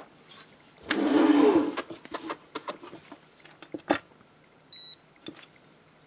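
Scattered handling clicks and knocks, then one short electronic beep from the keypad of a WEDO Porto-Fix electronic postal scale, about three-quarters of the way through.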